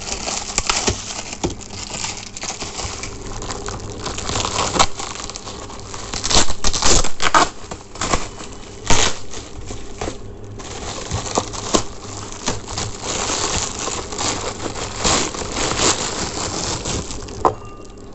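Close handling noise: rustling and crinkling, broken by irregular sharp crackles and clicks, as a gift cap is unpacked and handled.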